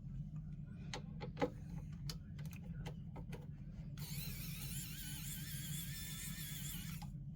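Small clicks of screws and parts being handled, then a cordless electric precision screwdriver whirring for about three seconds while turning out a screw, and stopping suddenly.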